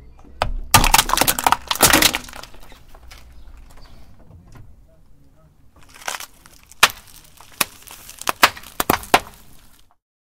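A car tyre rolls over and crushes plastic funnels, the plastic cracking and snapping loudly for a second or two. About six seconds in, the tyre runs over a row of small plastic packets, which burst one after another in a string of sharp pops.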